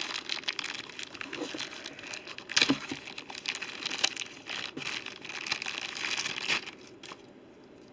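Plastic packaging crinkling and rustling with sharp crackles as a tripod is unwrapped. It stops about six and a half seconds in.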